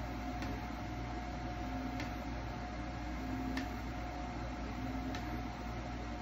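SeeMeCNC Rostock Max v4 delta 3D printer probing its bed: a steady hum, short stepper-motor buzzes as the arms reposition the nozzle, and a light tick four times, about one and a half seconds apart, as the nozzle touches the bed.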